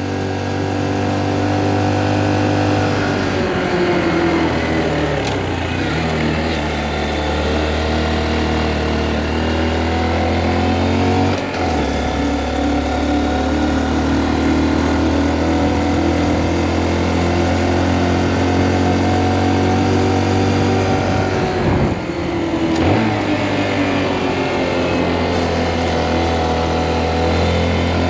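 Honda Monkey 125's small single-cylinder four-stroke engine running under load, heard from the rider's seat. Its pitch falls and rises with the throttle, with short breaks about twelve and twenty-two seconds in where gears are changed.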